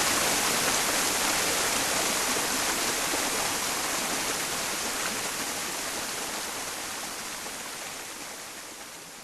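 Mountain stream blended with white noise: a steady rush of running water and hiss, strongest in the high end, fading out gradually.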